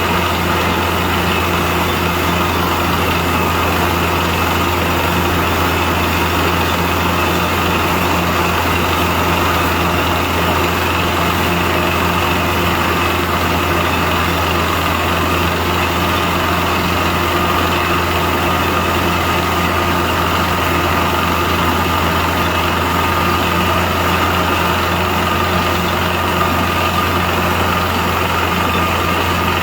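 Compressor machine running steadily, a constant low hum with a few held higher tones over it.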